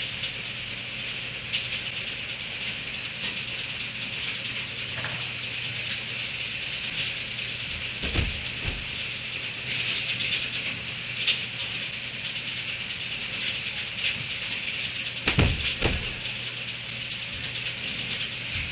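Steady high-pitched outdoor hiss with a low hum, broken by a few dull knocks and rattles from a donkey feeding at a hay rack, twice in pairs: about 8 seconds in and again about 15 seconds in.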